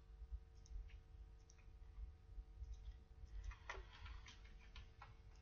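Faint, scattered computer mouse clicks, with a cluster of them from about three and a half seconds in, over a low steady hum.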